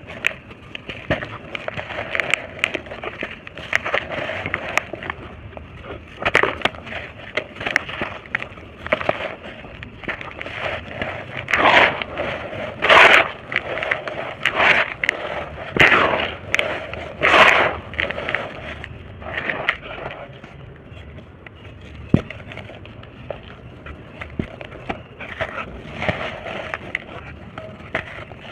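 Dry, molded shapes of red brick dirt being crushed and crumbled, a steady gritty crackling broken by several louder crunches in the middle.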